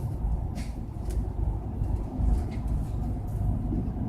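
A train running slowly: a steady low rumble with a few faint clicks and knocks through it.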